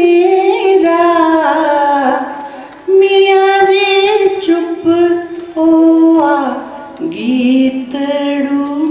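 A woman singing a poem unaccompanied into a microphone, in long held notes that slide between pitches, broken into phrases with short pauses for breath.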